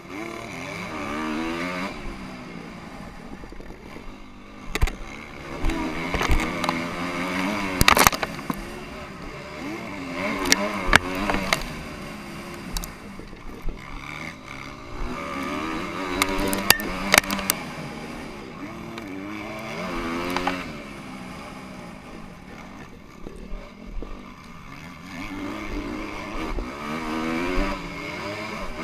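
Honda CRF250R's single-cylinder four-stroke engine, heard from on board, revving up and down again and again as the dirt bike is ridden hard around a motocross track. Several sharp knocks cut in along the way.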